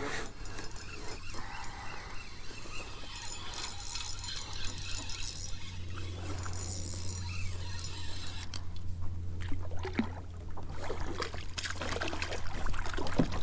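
Water lapping and trickling against a kayak hull, with scattered small clicks and knocks.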